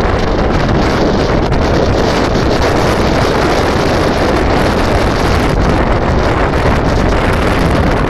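Strong wind blowing hard across the microphone: a loud, steady rushing rumble with no letup.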